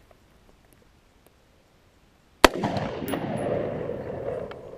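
A single rifle shot from a Sig Sauer 516 Patrol, a gas-piston AR-15-style rifle in .223/5.56, about two and a half seconds in. It is followed by a long rolling echo off the canyon walls that fades over about two seconds.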